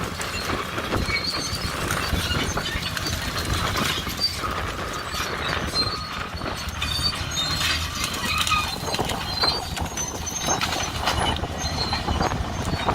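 Bulldozers running while dragging a heavy chain through brush: a low steady engine hum under a dense, irregular clatter of clanks and snapping, with short high squeaks now and then.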